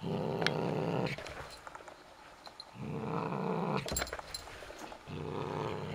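Long-haired grey cat growling with a mouse held in its mouth: three low, rough growls about a second long, an angry warning to keep off its prey.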